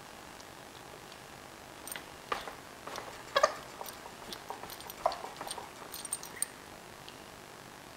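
A corgi chewing and pawing at a rubber ball toy: an irregular run of clicks, knocks and rubbing sounds that starts about two seconds in, is loudest a little past three seconds, and dies away after about six and a half seconds.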